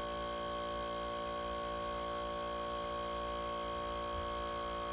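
Iwata Hammerhead Shark oil-lubricated airbrush compressor running with a steady, even hum. It is in sound working order after years of heavy use.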